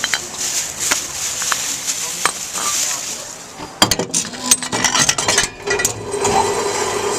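Glass bottle clinking and knocking as it goes into a Tomra glass reverse vending machine, then the machine's motor starting up with a steady hum about four and a half seconds in.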